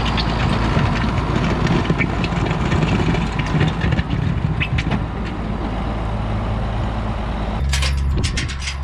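Tractor engine running steadily, with a burst of sharp clattering and clicks near the end as the engine note shifts.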